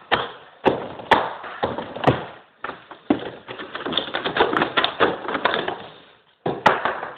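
A locked door being kicked and forced: a series of sharp knocks about every half second, then a run of fast clattering and rattling, and one more hard hit near the end.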